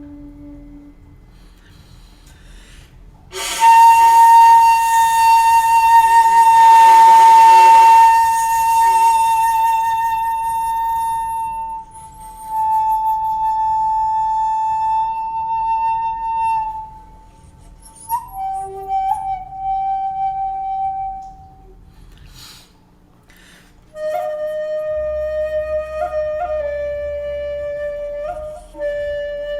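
A 2.4-shaku shakuhachi by Ichijo Kobayashi played in long held notes. About three seconds in, a loud, breathy note starts and is held for several seconds. The player then steps down to lower notes, the last one carrying short grace-note flicks near the end.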